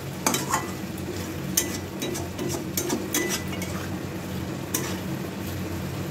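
Metal spatula stirring pointed gourds in a thick, reduced gravy in a metal kadai, scraping the pan with irregular sharp clinks against its side, over a soft frying sizzle as the last of the water cooks off.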